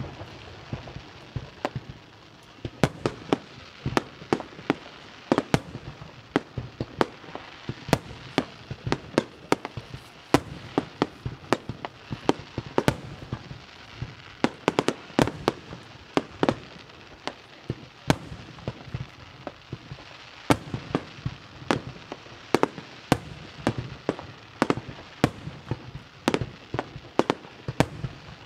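Aerial fireworks finale: a dense, irregular barrage of shell bursts, sharp bangs coming at times several a second, over a steady background hiss and crackle.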